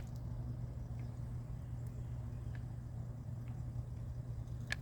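A steady low mechanical hum, with a few faint clicks here and there.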